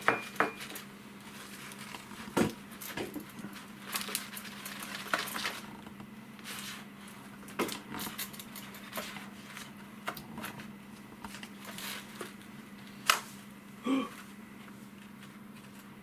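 Scattered small clicks, taps and scrapes of a plastic scale model being handled and polished with compound, with one sharper knock near the end, over a steady low hum.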